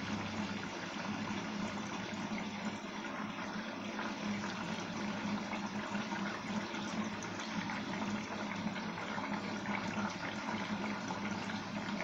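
Arçelik front-loading washing machine taking in water at the start of its cotton 40 short wash: a steady rush of inflowing water with a low hum underneath.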